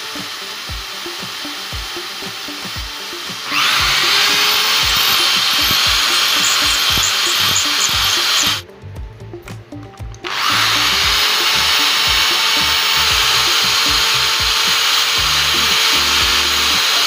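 Handheld electric drill boring a hole through a wooden block. It starts about three and a half seconds in, runs steadily for about five seconds, stops for under two seconds, then runs again until the end, the second run with a step drill bit. Background music plays underneath.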